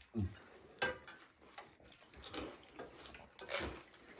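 Light clicks and clinks of plates and utensils while pani puri is eaten, three short sharp ones spaced well over a second apart.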